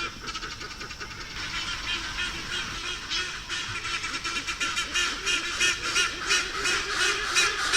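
Black-and-white hornbill calling in a fast run of repeated harsh notes, several a second, growing louder toward the end.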